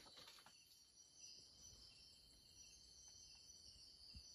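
Faint, steady night-time insect chorus: crickets shrilling in a continuous high-pitched drone.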